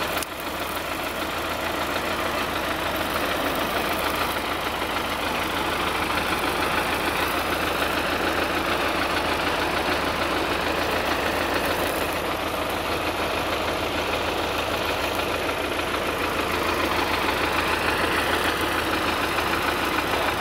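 Diesel engine of a wheeled tractor with a front loader, running steadily at idle.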